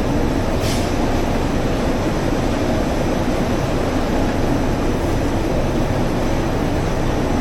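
Textile finishing machinery running with a loud, steady mechanical noise, with a short hiss about a second in.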